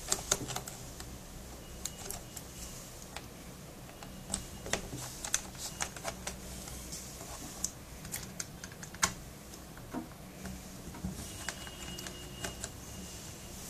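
Irregular small clicks and taps of a screwdriver and fingers on the plastic underside of a laptop, as its screws are backed out.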